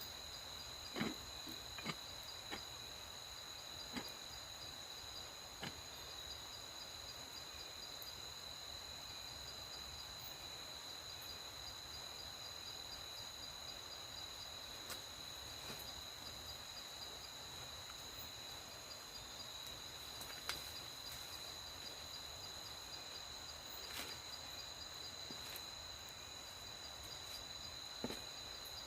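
Night insects such as crickets trilling in a steady high chorus over a faint hiss, with a few short sharp clicks or cracks scattered through, the clearest about a second in and near the end.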